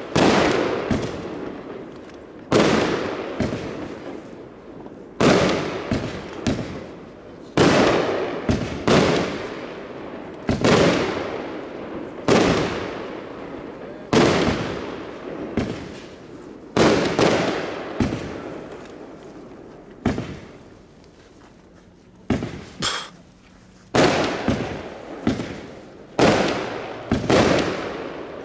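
A firework battery (a multi-shot cake) firing shot after shot, one every second or two and sometimes two in quick succession. Each shot is a sharp bang that fades away over about a second, and there is a brief lull partway through.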